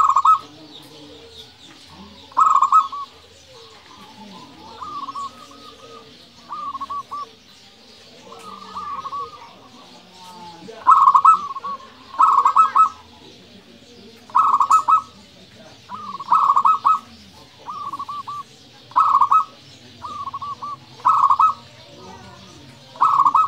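Zebra dove (perkutut) cooing: a run of short, quick-noted coo phrases repeated every second or two, some loud and some softer.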